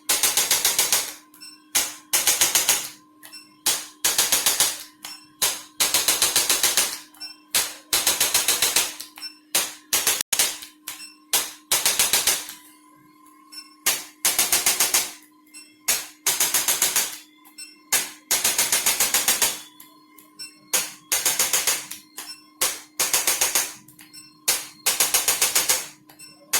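Bursts of very fast mechanical clicking, each about a second long, repeating roughly every two seconds, over a steady low hum.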